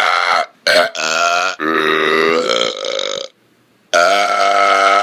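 A person burping on command: several loud, long, pitched burps one after another, with a short silence just after the middle before a last long burp.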